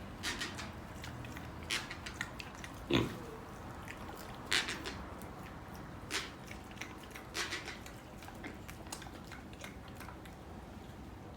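Micropig sniffing and grunting: short scattered sniffs, with a louder grunt about three seconds in.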